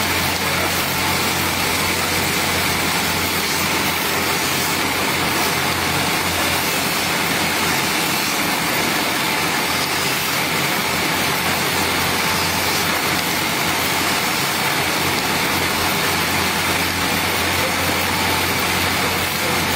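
Electric belt grinder running steadily with a low hum, as steel scissor blades are pressed against the moving abrasive belt and ground.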